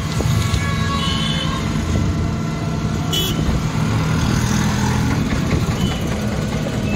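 Steady road and traffic noise heard from inside an open passenger rickshaw as it drives, with a couple of short horn toots about a second in and again around three seconds in.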